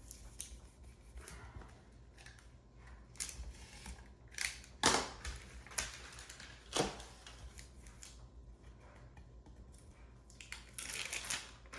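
Double-sided carpet tape being handled and pressed onto a wooden board: scattered rustles and clicks, with two sharper snaps about five and seven seconds in and a stretch of rustling near the end.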